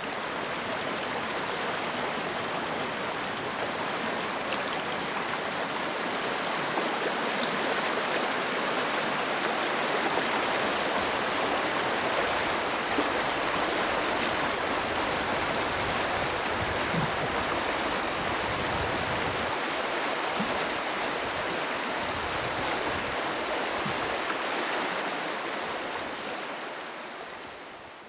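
River rapids rushing steadily over shallow rocks and boulders, a continuous splashing rush of water that fades out at the end.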